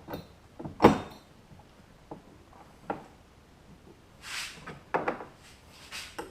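Small hardware being handled: a few knocks and clicks as bolts and washers are lined up and fitted through a plastic kayak mount, the loudest knock about a second in.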